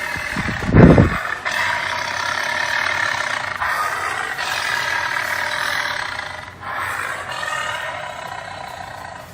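Tiger sound effect of angry roaring and growling, in long snarls broken by short pauses. A heavy low thump about a second in is the loudest sound.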